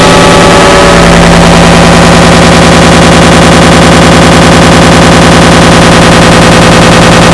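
An error sound effect layered on itself an enormous number of times, merging into a loud, clipped, rapidly pulsing din with a fast machine-gun-like rattle. About a second in, a steady low hum comes to the fore.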